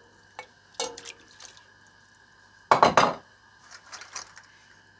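Smoked beef bones slide off a ceramic plate into a stainless-steel stockpot of broth, landing with one loud short splash about three seconds in. Light clinks of the plate against the pot come before and after it.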